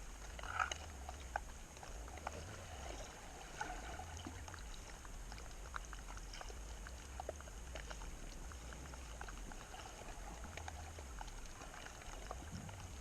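Underwater recording of eşkina (brown meagre) calling: low grunting that comes and goes in stretches of a second or more, made by the fish vibrating its swim bladder, under a steady crackle of small clicks.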